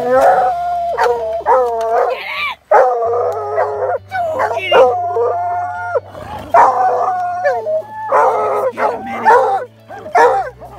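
A pack of hounds baying together: long drawn-out howls, some held on one note for about a second, mixed with shorter calls that overlap and repeat throughout. It is the bay of hounds with quarry holed up in a den.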